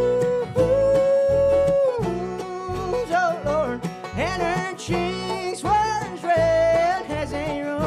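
A bluegrass band playing live: plucked banjo and guitar over a steady bass pulse, with a melody line of long held notes that slide into pitch.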